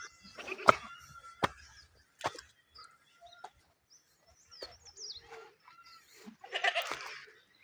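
Livestock bleating once, a rough call near the end, with small birds chirping high and a few sharp clicks scattered through.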